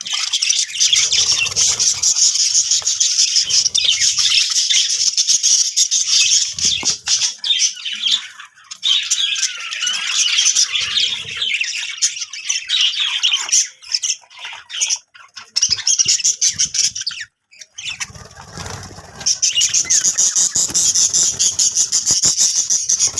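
Budgerigars chattering and warbling, a dense, busy stream of high chirps and squawks that breaks off briefly about two-thirds of the way through before picking up again.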